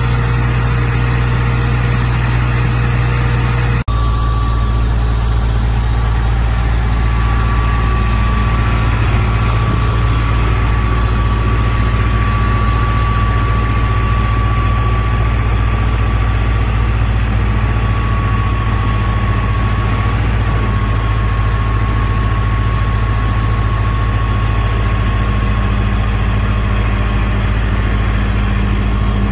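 Cummins QSB5.9 turbocharged inline-six diesel of a Tadano GR300XL-1 rough-terrain crane idling steadily. The sound changes abruptly about four seconds in, and from there a steady high whine sits over the engine.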